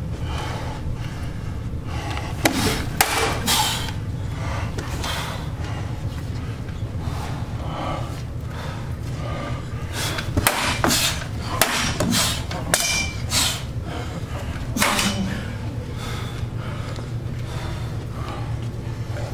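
Machetes striking round shields: sharp metal hits in a quick flurry about two and a half seconds in, a longer flurry from about ten to thirteen and a half seconds in with one hit briefly ringing, and one more near fifteen seconds. A low steady hum runs underneath.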